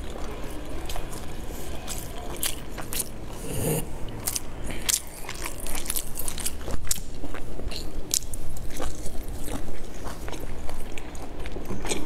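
Close-miked mouth sounds of a person biting and chewing a dumpling, with many irregular sharp clicks and smacks of the lips and mouth.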